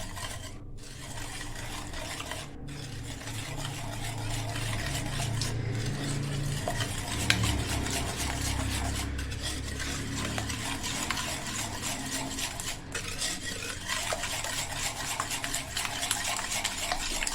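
Eggs, caster sugar and lemon zest being beaten together in a mixing bowl: a steady, continuous mixing and scraping sound.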